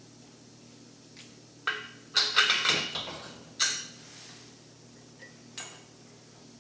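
Metal parts clanking and clattering: a quick run of sharp, ringing knocks about two seconds in, a last loud clank near four seconds, and a lighter tap later on.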